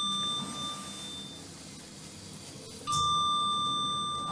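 Electronic lift chime: the fading tail of one ding, then another clear ding about three seconds in that rings on and slowly dies away, over the low hum of the moving lift car.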